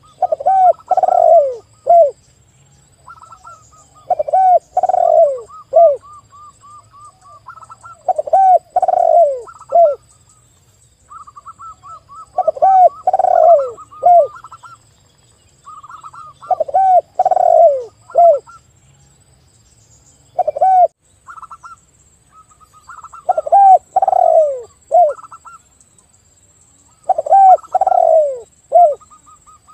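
A spotted dove and a zebra dove cooing together. Loud, low phrases of three or four falling coos come about every four seconds, with quieter, higher, quicker cooing notes in between.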